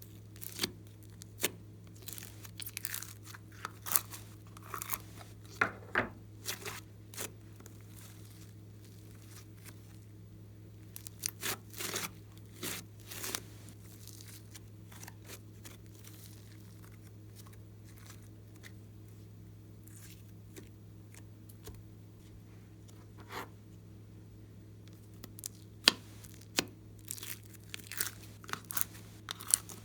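Glossy slime being squeezed, stretched and folded by hand, giving bursts of sharp clicks, pops and crackles with quiet pauses between them.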